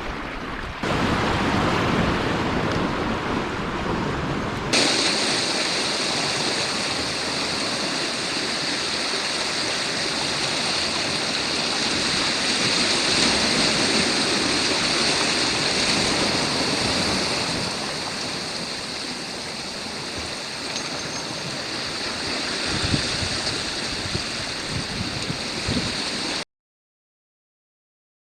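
Steady rushing of sea surf washing over a rocky shore. The sound changes abruptly about five seconds in and cuts to silence near the end.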